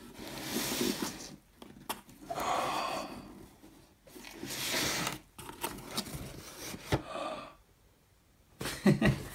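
Cardboard shipping box being opened by hand: several rustling, scraping bursts about a second long as the flaps are pulled apart and rubbed, with a sharp click shortly before the end.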